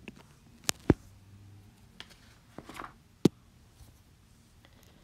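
Stylus tip tapping and clicking on a tablet's glass screen during handwriting: a few sharp, separate clicks, the loudest just under a second in and another about three seconds in.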